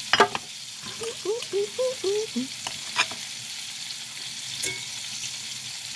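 Chicken pieces sizzling as they fry in butter in a pan, with a spatula knocking and scraping against the pan as they are stirred. A run of short squeaks comes between about one and two and a half seconds in.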